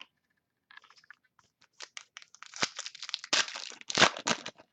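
Trading card pack wrapper being torn open and crinkled by hand, a run of crackles that grows denser and louder through the second half.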